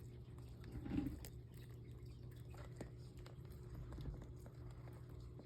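Bearded dragon chewing a hard-shelled patent leather beetle: scattered faint crunches, the loudest about a second in, over a steady low hum.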